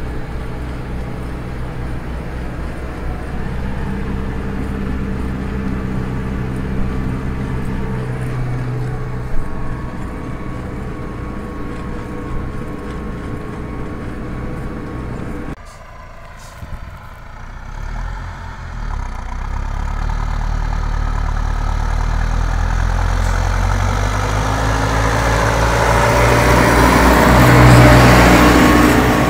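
Valtra tractor's diesel engine working steadily under load while pulling a subsoiler. About halfway through the sound cuts and drops away. It then builds up again, louder and noisier, with the engine and the rush of the tyres and worked soil loudest near the end.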